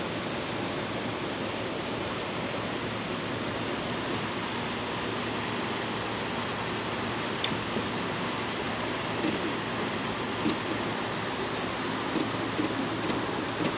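Steady rush of river water flowing through the dam's gates, with one sharp click about halfway through.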